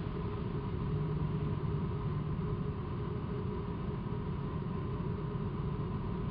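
Steady low roar of hurricane wind and heavy surf breaking, with no distinct single event standing out.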